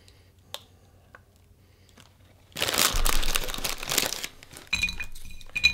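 Foil biscuit bag crinkling loudly for about two seconds as it is tipped, then small savoury biscuits dropping onto a ceramic plate with a few light clicks and clinks near the end.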